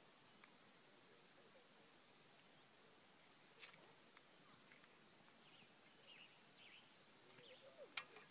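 Near silence with faint insect chirping, a short even chirp about three times a second, and a soft click about three and a half seconds in and another near the end.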